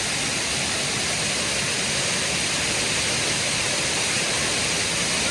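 Waterfall: steady rushing of falling water, even and unbroken.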